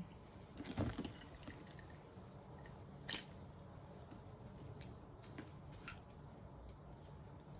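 Faint handling noises from a backpack being turned over and its parts worked: scattered light clicks and rustles, the clearest about a second in and about three seconds in.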